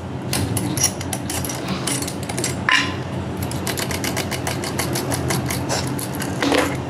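A small engine running steadily at idle, with a quick mechanical ticking over it.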